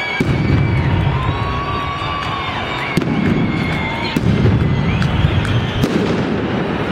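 A fireworks display going off continuously: a dense low rumble of overlapping bangs with sharp cracks scattered through it. Thin, high whistles glide up and down above it.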